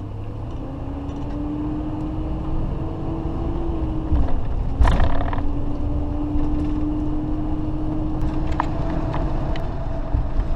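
Diesel engine of a Class A motorhome running under way, heard from inside the cab as a steady drone over road rumble. A brief clatter comes about five seconds in.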